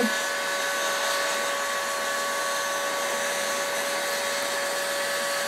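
Electric heat gun running steadily: a rush of blown air with a steady whine from its fan motor. It is blowing hot air onto a glued paper pattern to soften the glue so the pattern peels off.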